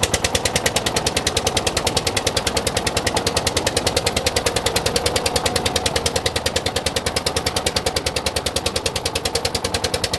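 Fishing boat's engine running steadily under way, a fast even chugging of about eight beats a second with a steady hum underneath. It is loud enough to drown out talk.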